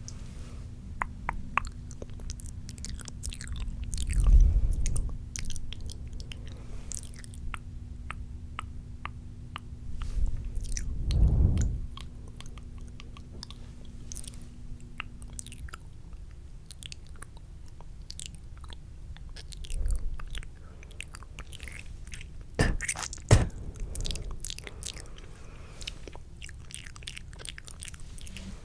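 Close-up wet mouth sounds: spitty tongue and lip clicks right at the microphone, with several louder low thuds and a pair of sharp knocks late on.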